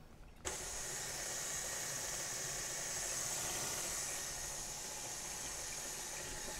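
Stand mixer's electric motor switched on about half a second in, then running steadily as it drives a pasta roller attachment rolling out a sheet of pasta dough.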